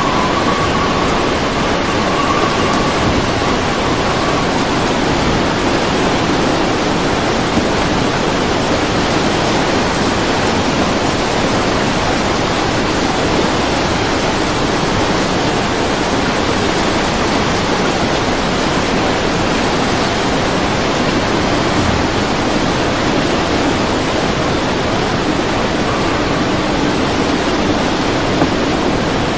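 Muddy floodwater rushing and churning over a sloping concrete embankment, a steady, loud wash of water noise.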